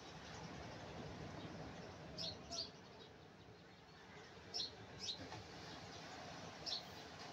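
A bird chirping: five short, high chirps that fall in pitch, two pairs and then a single, over the steady hush of surf.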